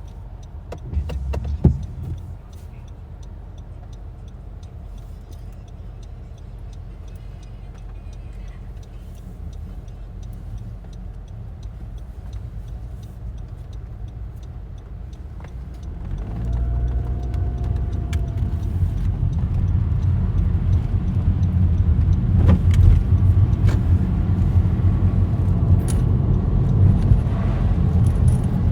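Car cabin road noise while driving: a steady low rumble, with a couple of sharp clicks in the first two seconds. About halfway through, the engine picks up speed and the rumble grows louder and stays louder.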